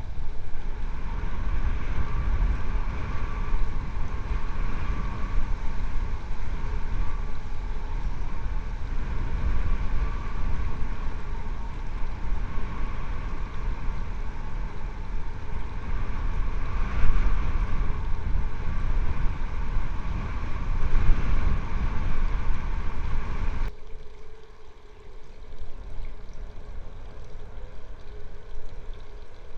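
A steady low rumble with a faint steady hum above it, which cuts off abruptly about six seconds before the end and leaves a quieter rumble.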